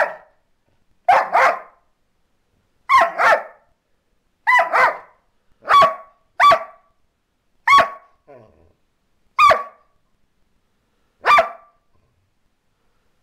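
Border Collie barking: short barks, several of them in quick pairs, coming about every second and a half and stopping about twelve seconds in.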